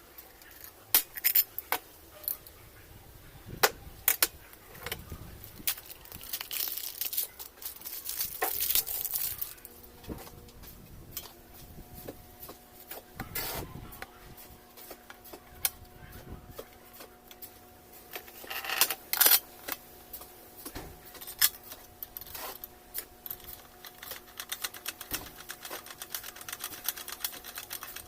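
Small metal parts and tools of a Consul Facilite washing machine mechanism clinking, clicking and scraping as they are handled and fitted back together, with irregular sharp knocks and short rattles. A faint steady hum comes in about ten seconds in.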